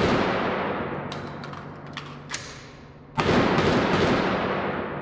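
Gunshots: the long echoing tail of one shot dies away, then a second shot hits about three seconds in and decays slowly. A few faint clicks sound between the shots.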